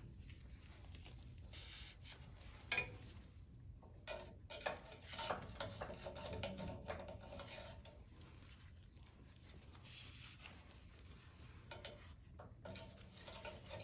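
Scattered light metallic clinks and rubbing of hand tools and plumbing fittings being handled, with one sharp clink about three seconds in.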